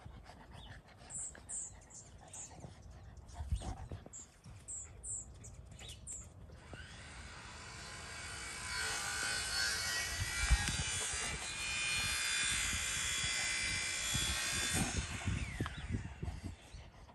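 A Great Pyrenees and a black cocker spaniel puppy play-wrestling on grass: scuffling and soft knocks, with a few short high chirps in the first few seconds. A steady whirring noise swells in after about seven seconds and fades out near the end.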